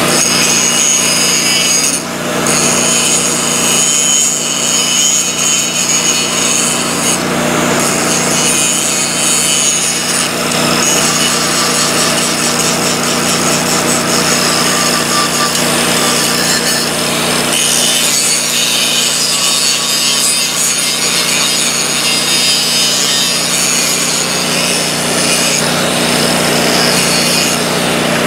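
Grinder grinding steel, running steadily with a brief dip about two seconds in.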